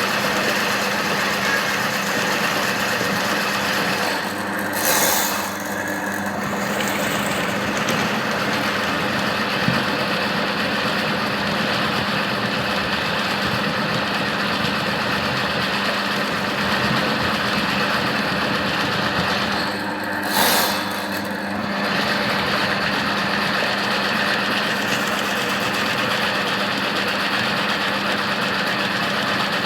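Electric drain-cleaning machine running steadily, turning a spiral steel cable inside a clogged drain pipe, with a constant hum. Twice, about five seconds in and again near the middle, a brief louder rushing noise breaks in for about a second.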